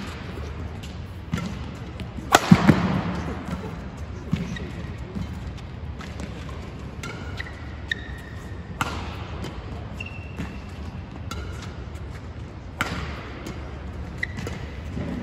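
Badminton rally: rackets striking the shuttlecock with sharp cracks every second or two that echo around the hall, the hardest about two and a half seconds in. Shoes squeak briefly on the court mat between shots.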